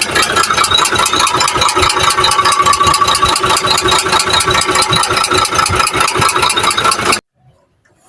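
Engine running with a loud, rapid, regular knocking from inside the engine, a fault the mechanic traces to the internals by pulling the cylinder head. The sound cuts off abruptly about seven seconds in.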